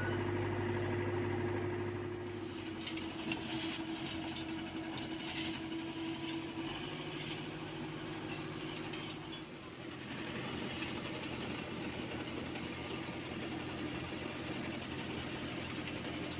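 Engines of road-paving heavy equipment running steadily, their hum stepping to a different pitch a few times, with some light clanking between about three and six seconds in.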